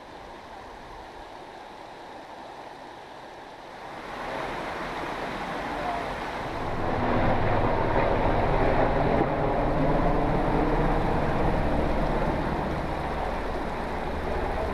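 Rushing stream water, a steady noisy wash that grows louder about four seconds in and is fullest from about seven seconds on.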